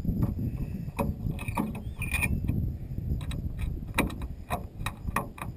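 Hand screwdriver driving the screws that hold an aircraft's turtle deck cover, giving a string of sharp, irregular clicks that come faster in the second half. Low wind rumble on the microphone underneath.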